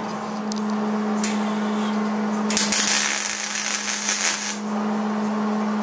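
A welding arc crackles and hisses for about two seconds, starting around midway, as a plug weld is laid through a hole in the VW bus's inner dogleg sheet metal. A steady low hum runs underneath the whole time.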